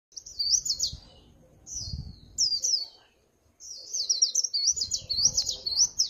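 Caged white-eye singing fast, high-pitched twittering warbles in three bursts, with a short pause about three seconds in. This is the white-eye song style called líu pha chòe.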